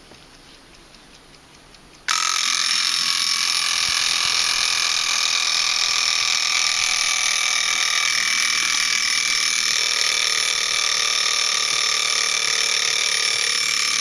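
Vintage German mechanical wind-up alarm clock ringing its bell: the alarm goes off suddenly about two seconds in, rings loud and steady for about twelve seconds, and cuts off abruptly near the end.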